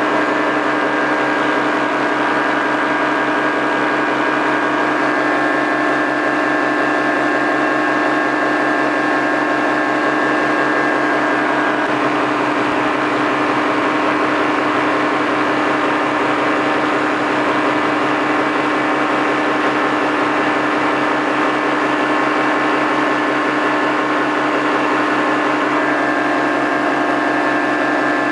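Paramotor engine and propeller running steadily in flight at a constant throttle, a loud, even drone with a slight shift in pitch about twelve seconds in.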